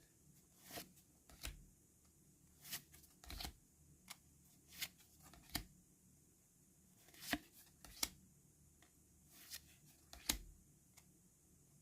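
Pokémon trading cards being handled and flicked through one by one: faint, irregular short swishes and snaps of card stock sliding against card, about one or two a second.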